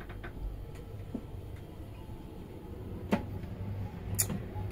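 Low steady hum with a few scattered light clicks and knocks; the firmest knock comes about three seconds in and a sharp high click about a second later.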